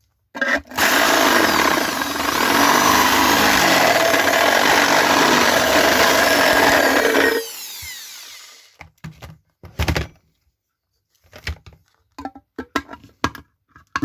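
Power drill running for about seven seconds as it widens a hole in a jar's thin metal lid, then spinning down with a falling whine. Short knocks and clicks of handling follow.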